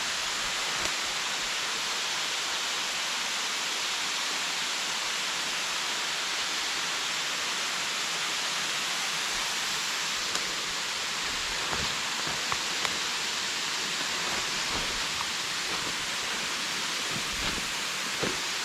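Waterfall with a steady, even rush of falling water, and a few faint ticks here and there.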